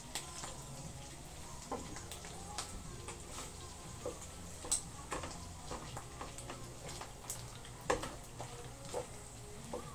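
Wooden spatula stirring bagoong frying with pork in a stainless steel pan: scattered scrapes and taps against the pan over a faint sizzle, with two sharper taps, one about midway and one near eight seconds in. A steady low hum runs underneath.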